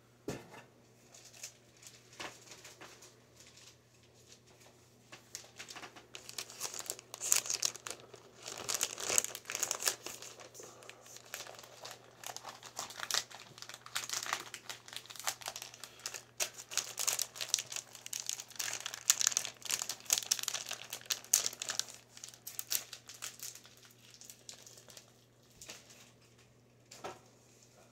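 Plastic packaging crinkling and rustling as it is handled and pulled open, in irregular bursts that are busiest through the middle and thin out near the end.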